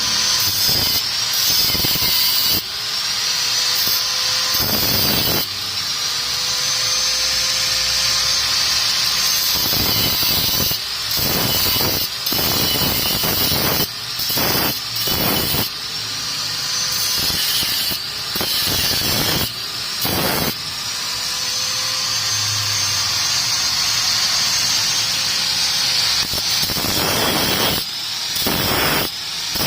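Electric power tool running in several long runs with brief stops between them. Each run starts with a whine that rises as the motor spins up and then holds steady under a hissing cutting noise.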